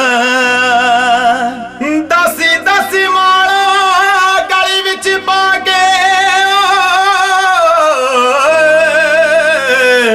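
Punjabi qawwali: a male lead voice sings long, wavering held notes without clear words over a sustained harmonium, with a brief break about two seconds in.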